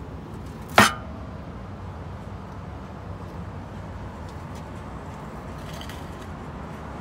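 A single sharp clink of cookware at the barbecue grill about a second in, with a short ring after it, over steady background noise.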